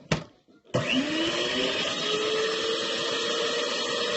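Electric hand mixer switched on with a click, its motor rising in pitch as it gets up to speed and then running steadily as it beats eggs, sugar and lemon zest.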